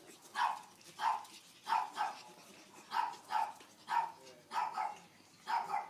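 Pug puppies yapping as they play-fight: about a dozen short, high barks, some in quick pairs, roughly two a second.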